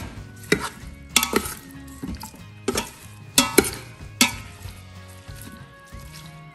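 Metal spoon stirring raw chicken, spinach, carrots and pumpkin in a stainless steel Instant Pot inner pot, with irregular sharp clinks of the spoon against the pot's side.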